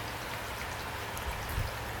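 Steady rain falling, with individual drops heard as small sharp ticks over an even hiss. A soft low thump about a second and a half in.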